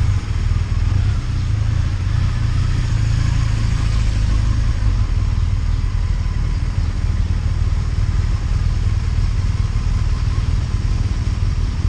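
A BMW touring motorcycle's engine running steadily at low revs while the bike is ridden slowly, heard from the rider's seat as a constant low drone.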